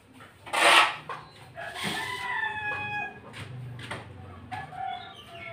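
A rooster crows once, a long call of about a second and a half starting about two seconds in. Just before it comes a short scratch of a pencil stroke marking a paper template on a wooden door.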